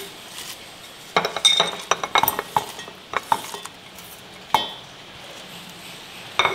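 Scattered light clinks and rustling as fresh herbs, green chillies and garlic cloves are pushed off a ceramic plate into a stainless-steel mixer-grinder jar, mostly in the first half, with one last clink near the end.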